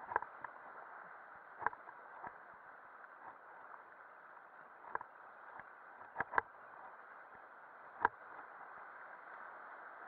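Steady rush of river water around a raft, with sharp knocks at irregular intervals, about seven in all, two close together past the middle.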